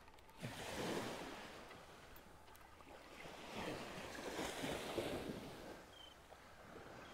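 Small surf waves washing up on a sandy beach, swelling about half a second in and again about four seconds in.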